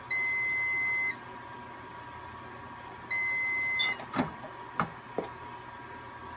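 Heat press timer beeping twice, each beep about a second long, as the pressing time runs out. A few sharp clunks follow as the press handle is released and the upper platen lifted.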